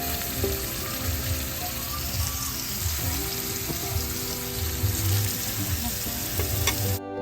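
Food sizzling in hot oil in a frying pan, a steady hiss that cuts off suddenly near the end, with background music under it.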